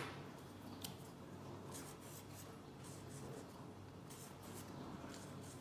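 Felt-tip marker drawing on a folded sheet of paper towel: faint, soft scratching strokes repeating as the outlines are traced, with a small click about a second in.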